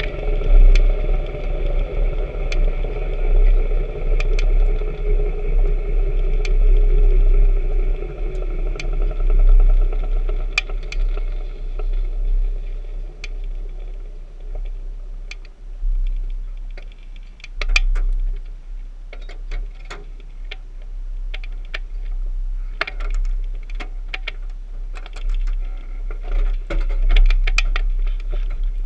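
Race car heard from its onboard camera as it slows and rolls to a stop: a low rumble with a whine falling in pitch over the first several seconds, then scattered sharp clicks and rattles that grow denser from about halfway.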